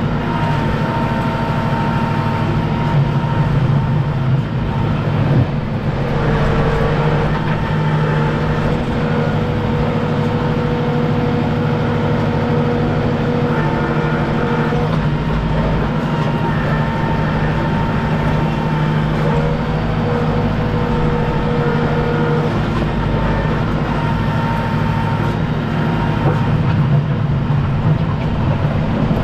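Kubota M6060 tractor's diesel engine running steadily under work, with a thin whine that comes and goes several times.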